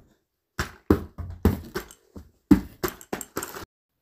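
A rapid, irregular series of loud bangs and knocks, about a dozen sharp hits, that stops about three and a half seconds in.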